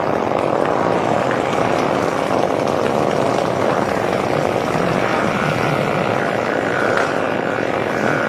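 A long, unbroken fart sound effect: a loud, steady buzzy rasp, with a faint thin tone joining it about five seconds in.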